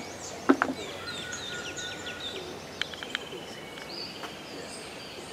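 Several birds calling in the surrounding trees: many short high chirps and down-slurred whistles, a steady whistled note early on and a longer pulsing trill around the middle, over a faint steady background hiss. Two sharp clicks sound about half a second in.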